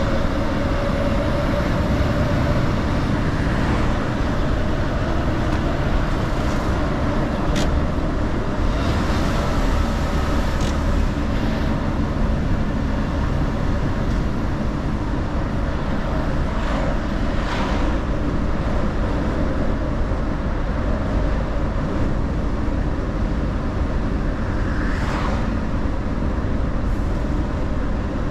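Mercedes-Benz Actros L truck driving along: a steady low engine and road rumble, with a few brief whooshes along the way.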